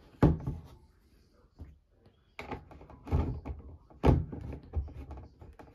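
Several sharp knocks and thuds of things being handled and bumped at a washing machine, the loudest just after the start and about four seconds in.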